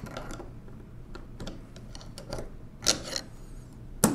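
Small metal clicks and taps of a screwdriver working against the steel Leibniz-wheel axle assembly of a 1920s Monroe Model K mechanical calculator, prying the side still caught in its clip. Two sharper clicks stand out, one about three seconds in and one near the end.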